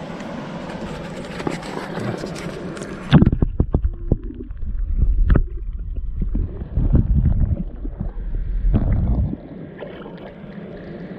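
Noisy river water, cut off about three seconds in as the camera plunges underwater. Then muffled, heavy low thumps and sloshing as the camera and its pole move through the water, easing to a quieter muffled rumble about nine seconds in.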